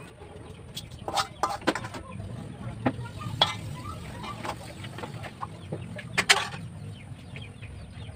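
Metal ladle scraping and clinking against a metal wok as the cooked fish is scooped out, with a few sharp clinks among softer scrapes.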